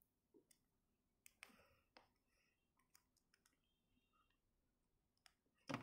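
Near silence, with a few faint, scattered clicks of a small plastic action figure and its accessories being handled.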